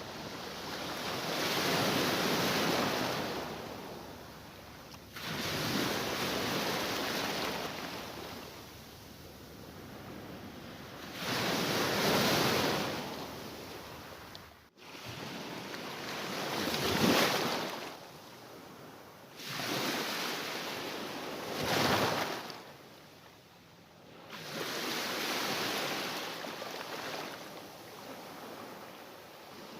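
Mediterranean Sea waves breaking and washing in, rising and falling in about seven surges a few seconds apart.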